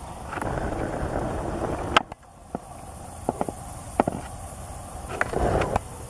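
Rustling with a loud sharp click about two seconds in, a few lighter clicks after it, and another short stretch of rustling near the end: movement noise from someone walking about outdoors.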